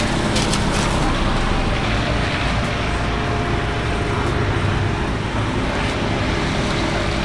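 Hyundai R35Z-9 mini excavator's diesel engine running steadily under working load while its arm and bucket dig in the stream.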